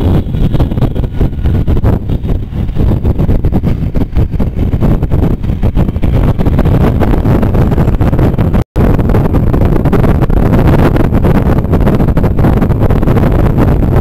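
Aprilia SR 150 scooter riding along at speed: engine and road noise under heavy wind rumble on the microphone. The sound cuts out for an instant about two-thirds of the way through.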